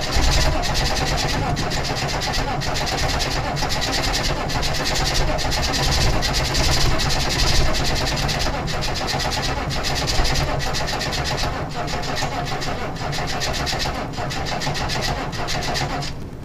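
1996 Chevrolet K1500's 6.5L turbo-diesel V8 cranking in the cold with a steady pulsing beat, struggling to catch and fire, out a straight-piped exhaust. It is hard-starting because the glow plugs are bad. The sound stops suddenly near the end.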